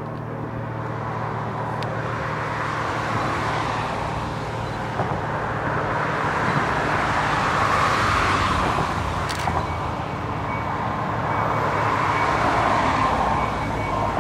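Vehicle noise: a steady rumbling hiss that swells about eight seconds in and again near the end, with a faint steady tone joining it near the end.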